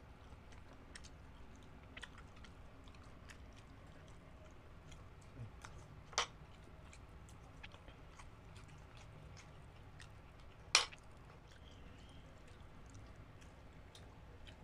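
Close-miked chewing and wet mouth clicks of two people eating grilled street food, with many small sharp clicks throughout and two louder sharp clicks about six and eleven seconds in.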